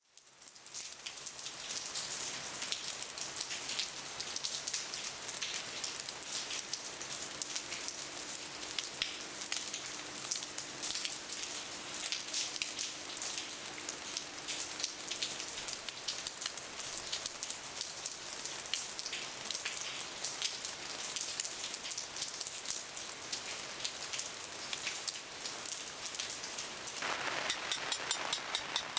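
Steady rain falling, a dense stream of small drop ticks on a surface.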